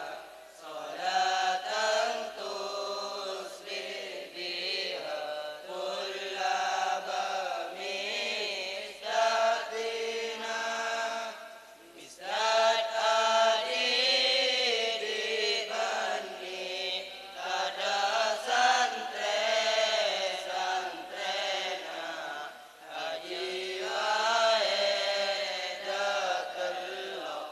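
A group of boys chanting Madurese syi'ir verses together into microphones, in long melodic phrases with short breaths about 12 and 22 seconds in.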